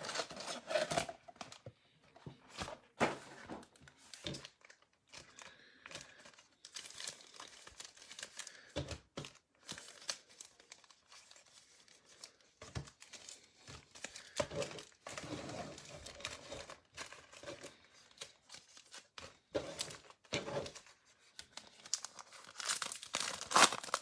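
Tearing open a blaster box of trading cards and its foil card packs: irregular bursts of ripping and crinkling wrapper, with small clicks and handling noises.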